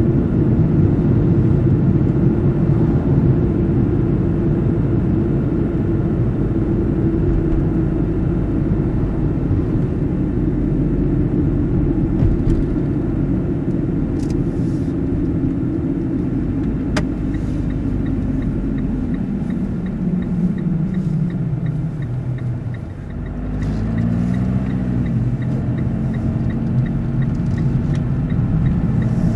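Car's engine and road noise, a steady rumble that drops in pitch as the car slows almost to a stop about three-quarters of the way through, then rises again as it pulls away through a turn. A turn-signal indicator ticks steadily through the slowing and the turn.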